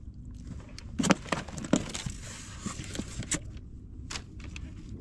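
Hand handling of fishing line and hook in a small wooden outrigger boat: a few light, sharp clicks and knocks over a low steady rumble, with a brief hiss in the middle.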